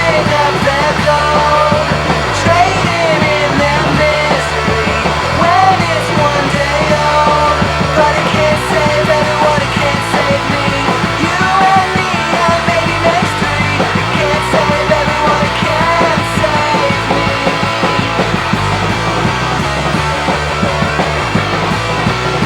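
Recorded rock song playing at a steady, loud level: a full band over a regular beat, with a melodic line sliding up and down in pitch.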